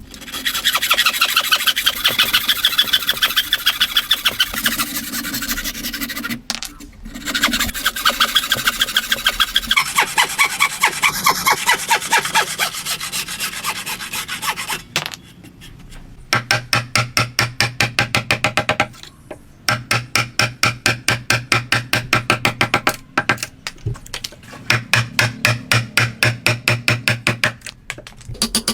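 A hand tool scraping against wood in fast, even back-and-forth strokes, a rasping sound repeated several times a second. It comes in runs of several seconds, broken by short pauses.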